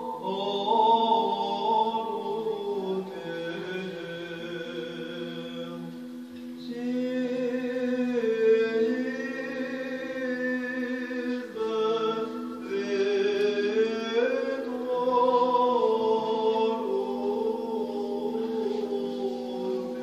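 Orthodox church chant: voices singing a slow, moving melody over a steady low held note, sounding through the church.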